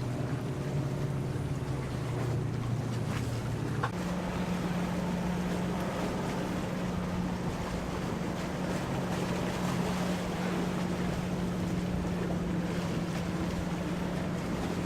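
Motorboat engine drone over steady wind and water noise. About four seconds in, the low hum steps up in pitch and then holds steady.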